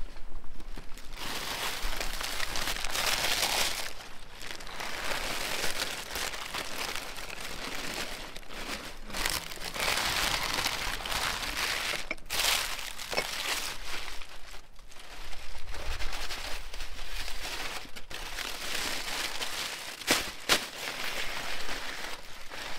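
Baking paper and aluminium foil crinkling and rustling as they are pulled back by hand from a roasted whole lamb, in bouts with short pauses and a few sharp crackles.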